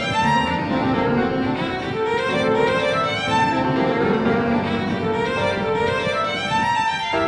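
Background classical music, a slow melody of held notes.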